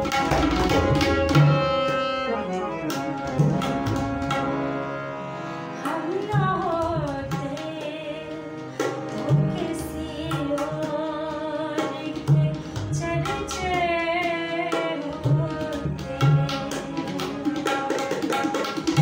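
A ghazal: a woman singing with harmonium and tabla. The tabla plays dense, quick strokes at the start and again near the end, thinning out in the middle while she sings long lines that waver in pitch over the harmonium's held chords.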